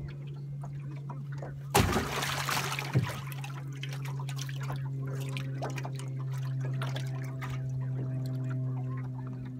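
Steady low hum of a boat's trolling motor slow-trolling. About two seconds in, a loud splash of water lasts about a second as the caught white perch is let go from the hand, followed by a single knock.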